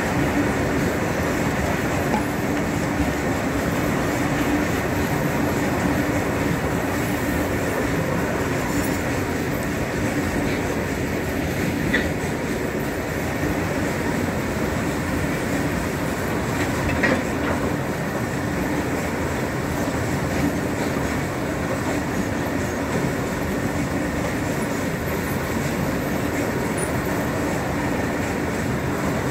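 Freight train of open-top steel wagons rolling past close by, a steady rumble and clatter of wheels on the rails. Two sharper clanks stand out near the middle, about five seconds apart.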